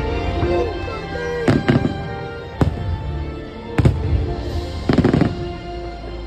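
Fireworks bursting over show music, about five sharp bangs roughly a second apart with a quick cluster near the end, while the music plays on underneath.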